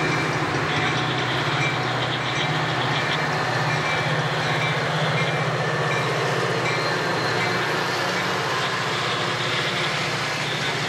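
Metra EMD F40PH diesel locomotive's engine running at a steady pitch while its bilevel commuter coaches roll past on the rails.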